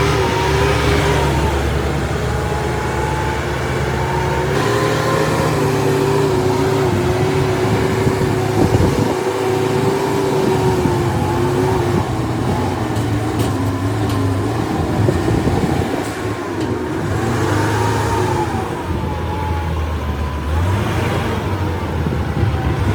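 Construction-vehicle diesel engine running steadily, with a high whine that wavers slowly up and down in pitch over the low engine rumble.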